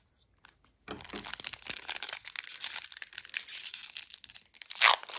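Foil Pokémon TCG booster pack wrapper crinkling and tearing as it is opened, starting about a second in, with a louder crackle near the end.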